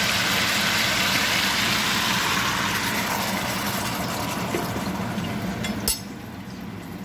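Oil and seasonings sizzling in a cooking pot: a steady hiss that slowly fades, cut short by a sharp click near the end.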